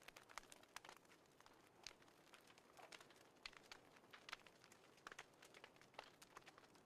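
Wood fire crackling in a wood stove: faint, irregular sharp snaps and pops, a few each second.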